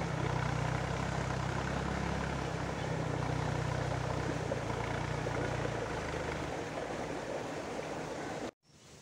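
Escort tractor's diesel engine running steadily as it pulls a tilling implement through the field, a low even hum under a steady rushing noise. The engine hum fades after about six seconds and the sound cuts off abruptly near the end.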